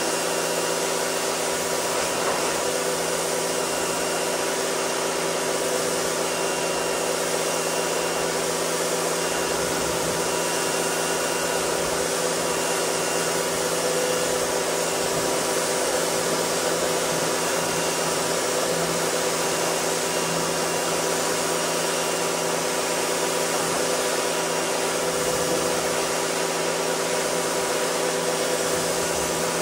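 Pressure washer running steadily: a constant motor-and-pump hum under the hiss of the water jet spraying a pickup truck's body.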